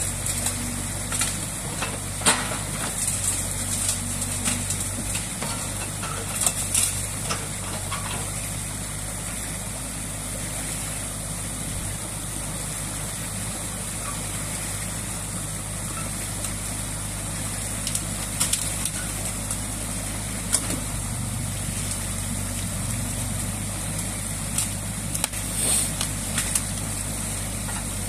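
New Holland Kobelco E50.2C crawler excavator's diesel engine running steadily, over the rush of stream water pouring through a breached beaver dam. A few sharp knocks or cracks are heard now and then.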